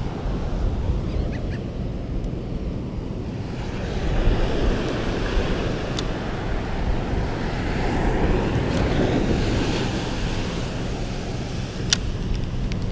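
Ocean surf breaking and washing up a sandy beach, swelling and fading, with wind rumbling on the microphone. Two sharp clicks, one about halfway through and one near the end.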